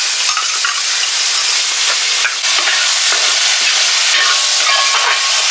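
Fried chicken and onion masala sizzling in hot oil in a large metal pot as curd is poured in and a ladle stirs it, a steady loud hiss.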